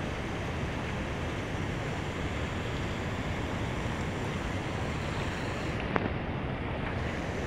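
Steady rushing noise of wind buffeting the microphone over flowing river water, with one sharp click about six seconds in.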